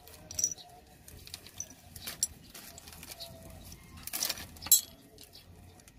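Plastic wrapping crinkling and small metal-backed brake lining pieces clinking as new aircraft brake linings are unwrapped and handled, with scattered rustles and light clicks and a louder burst of rustling just after four seconds in.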